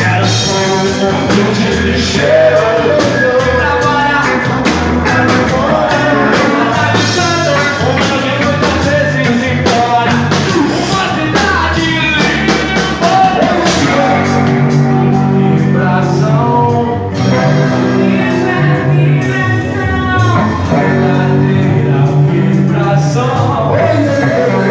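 Rock band playing a heavy song with a singer over drums and bass, loud and steady throughout.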